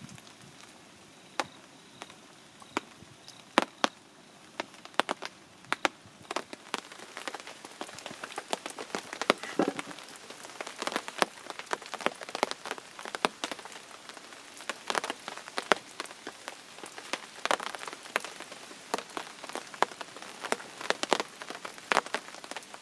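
Fire crackling and sizzling: sharp pops over a soft hiss, sparse at first and coming much thicker from about seven seconds in.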